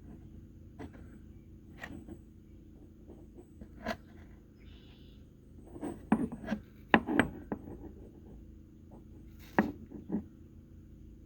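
Steel 3/4-inch drive impact sockets being handled, with scattered clinks and knocks as they are picked up, turned and set down on a hard surface. The clinks come singly about a second in, around two and four seconds, in a quick cluster between six and seven and a half seconds, and twice near the end.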